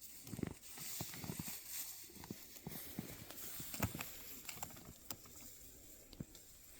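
Footsteps and rustling through tall grass: quiet, irregular crunches and swishes.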